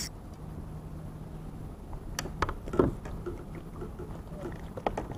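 Steady low wind and water noise, with a few sharp knocks and taps on a plastic kayak's hull about two, three and five seconds in, as a hooked fish is hand-lined and brought aboard.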